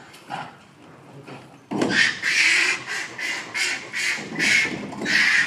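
A run of about eight loud, harsh animal calls at roughly two a second, starting a little under two seconds in.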